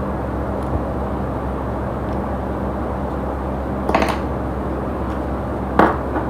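A steady hum and hiss, with two short sharp clicks: one about four seconds in, a louder one near the end.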